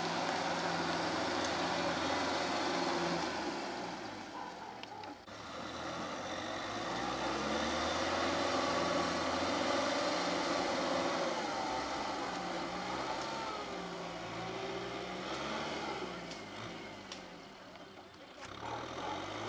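Kubota M6040SU tractor's diesel engine running under load while pulling a rotary tiller through wet paddy mud, its note rising and falling.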